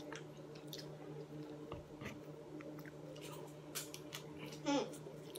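People chewing and slurping forkfuls of instant noodles, faint wet mouth clicks coming irregularly over a steady low hum. Near the end there is one short falling vocal sound.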